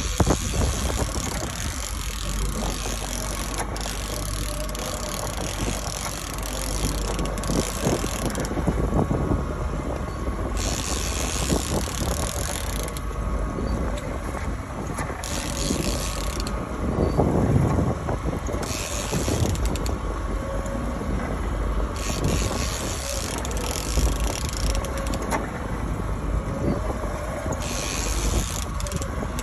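Fishing reel being cranked in spurts to bring a silver (coho) salmon in, a mechanical whirring and ratcheting that starts and stops every few seconds. Under it runs the steady low rumble of the boat's outboard motor and passing water.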